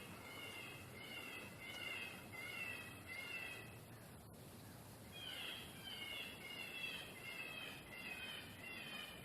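An electronic predator call plays a repeated wailing animal distress sound as short pitched cries, about one and a half a second, to lure coyotes. The cries pause for about a second and a half midway, with a single click about four seconds in.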